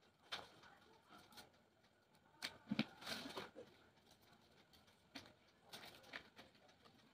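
Faint, scattered rustles and soft clicks of craft paper and scissors being handled as a folded paper cutting is opened out.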